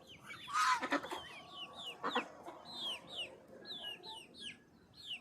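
Chicks peeping in many quick, high, falling chirps. A louder squawk comes about half a second in, and a short sharp sound about two seconds in.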